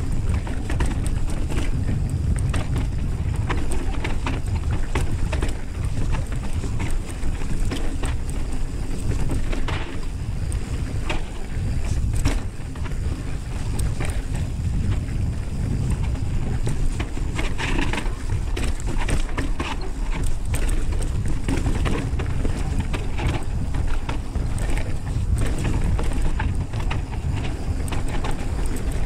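Mountain bike riding down rocky dirt singletrack: steady wind rush on the microphone, with the tyres crunching over dirt and rock and frequent short clatters and rattles from the bike jolting over bumps.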